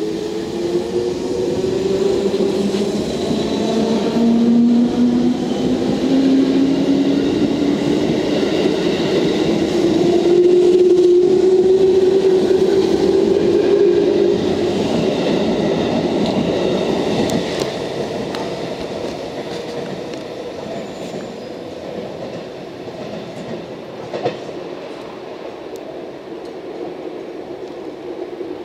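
Eight-car JR Central 211 series electric train pulling away from a station platform and gathering speed. Its motor hum rises in pitch over the first dozen seconds, with the wheels running on the rails, then the sound fades as the train draws away.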